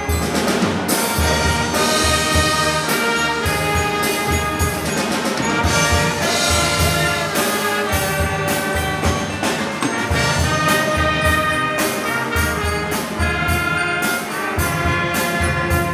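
School band playing live: saxophones and trumpets carry a melody over a steady drum beat.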